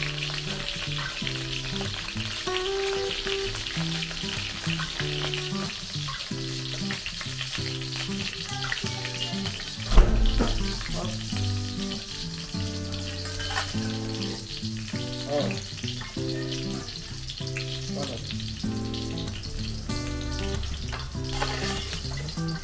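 Marinated milkfish (bangus) frying in hot oil, a steady sizzle throughout, with one sharp loud knock about ten seconds in. Light background music plays underneath.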